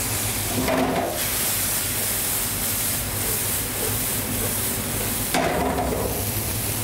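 Diced ham, shallots and butter frying alongside prawns in steel pans on a gas range: a steady sizzle, with two short louder moments of the pans being handled, about a second in and near the end.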